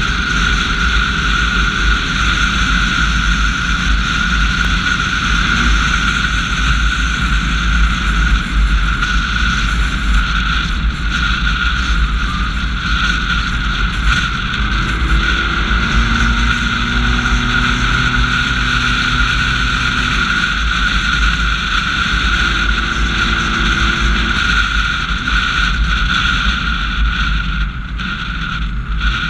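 Steady rush of wind and road noise from a 2010 Honda CR-V driving at speed, with a heavy low rumble of wind buffeting the microphone and a constant high-pitched whine running through it.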